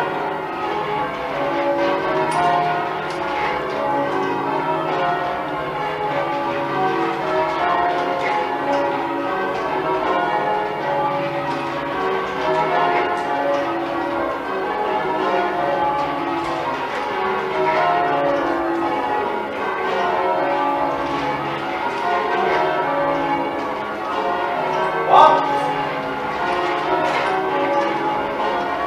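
A ring of ten church bells being rung full circle in changes, a steady run of overlapping strikes one after another with no pause. Near the end a brief, louder sound with a short upward slide rises above the bells.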